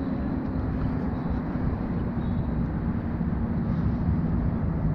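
A steady low engine drone from a passing motor, its hum dropping slightly in pitch near the end.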